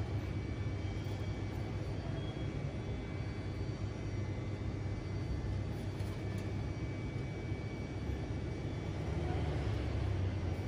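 Steady low rumble of outdoor urban background noise, such as distant traffic or aircraft, with no clear single event.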